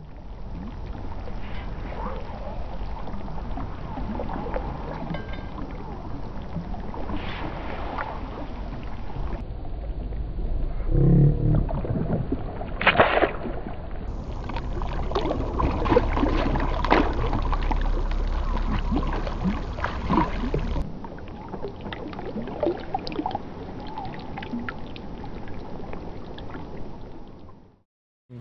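Creek water splashing and swirling around a wading angler and a rainbow trout being handled at the surface. The sound changes abruptly a few times where short clips are cut together.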